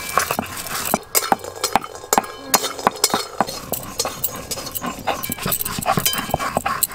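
Stone roller being rolled back and forth over a flat stone grinding slab (sil-nora), crushing dry-roasted spices into powder: a rapid, irregular run of gritty scrapes and knocks.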